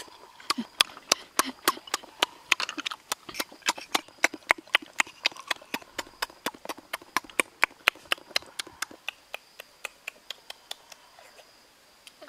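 Close-up eating noises from cooked snails being eaten: a rapid run of sharp, wet clicks, about four or five a second, that thins out and stops near the end.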